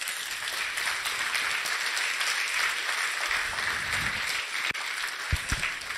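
Audience applauding steadily at the end of a talk, the clapping dying away near the end.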